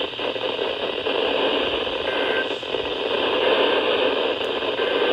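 Radio static: a steady hiss from a weather radio receiver with no voice coming through.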